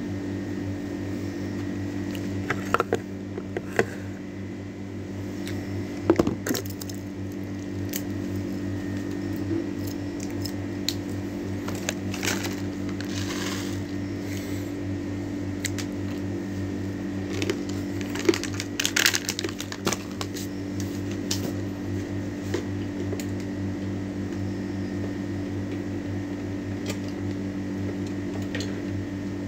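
Steady low electrical hum, like a fan or air conditioner, with scattered handling clicks and knocks. Midway and again a few seconds later come crinkling rustles, fitting a plastic snack packet being handled.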